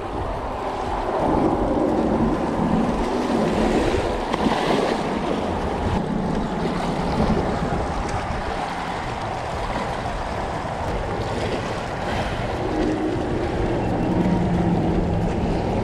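Wind on the microphone over small, choppy waves washing against the rocks of a seawall.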